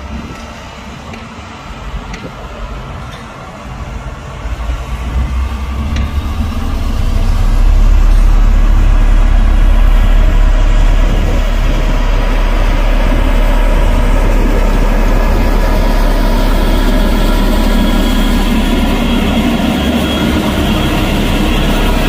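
Heavy diesel engine of earthmoving machinery running, growing louder over the first several seconds and then holding steady and loud, with a deep low rumble.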